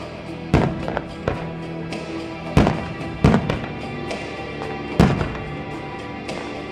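Aerial firework shells bursting, about six sharp bangs at irregular intervals of a second or so, over steady music played for the display.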